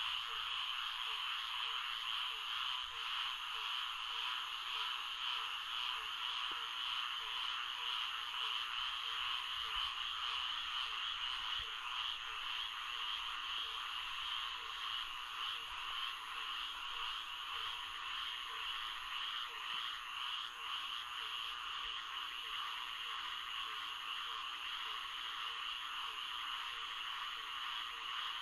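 Florida swamp frog chorus: many frogs calling at once in a dense, steady chorus, with a lower call repeating several times a second underneath.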